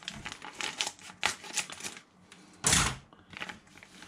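Thin plastic packet of konjac noodles crinkling as it is cut with scissors and then pulled open by hand: a run of small crackles and snips, with one louder crackle a little before three seconds in.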